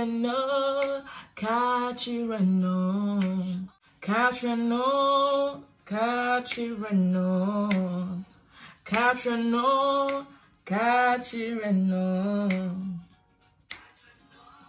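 A woman singing an old Ghanaian song in Twi, unaccompanied, in a series of held phrases with short breaths between them. The singing stops about thirteen seconds in.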